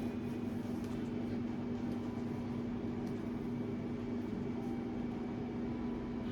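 A steady mechanical hum with a low, even drone that holds unchanged throughout.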